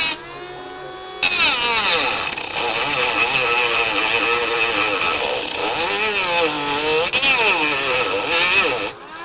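Milling machine cutter cutting into a ukulele body. For about a second only a steady spindle hum is heard, then a loud cutting sound with a pitch that wavers up and down with the load. It stops abruptly near the end.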